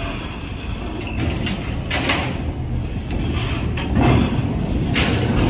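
Heavy vehicle engines running, a steady low rumble, with two short hissing sounds about two and five seconds in.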